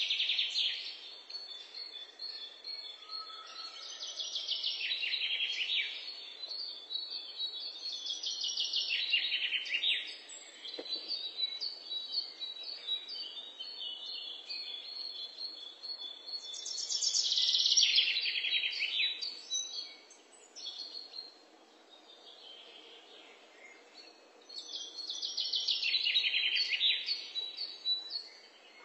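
Songbird singing: several loud phrases of rapid trilled notes that drop in pitch as they go, separated by pauses with quieter chirps.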